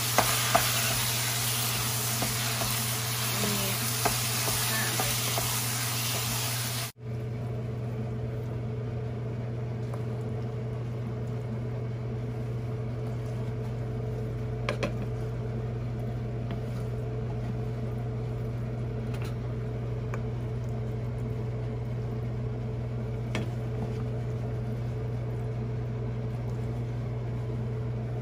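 Thick taro-stem curry with pork tail sizzling in a nonstick pan while a spatula stirs it, with small scraping clicks. The sizzle cuts off abruptly about seven seconds in, leaving a steady low hum and a few faint clicks.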